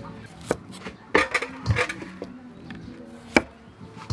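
A cleaver chopping green vegetable stalks on a round wooden chopping block: a handful of separate knocks of the blade into the wood at irregular intervals, the sharpest about three and a half seconds in.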